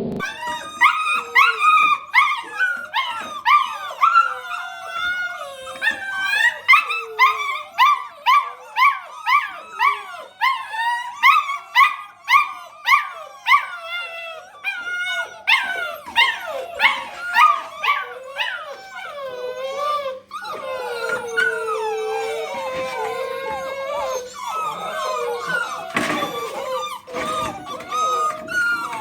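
Several little dogs howling and squealing together. First come quick, repeated rising yelps, then from about two-thirds of the way in longer, overlapping wavering howls.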